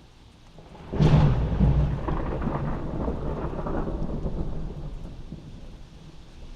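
A thunderclap heard from inside a house over steady rain: a sudden loud crack about a second in, then a rumble that dies away over several seconds.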